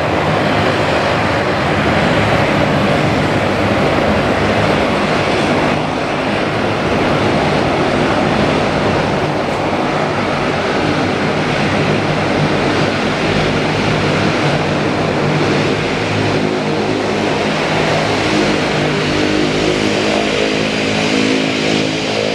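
Jet engines of a Boeing 777-200ER airliner running loudly and steadily as it rolls out along the runway after landing, a dense rushing noise with a low hum of engine tones underneath.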